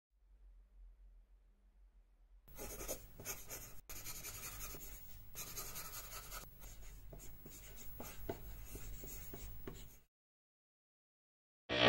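A pencil scratching on paper in quick, uneven strokes over a faint low hum, starting about two seconds in and cutting off suddenly near the end.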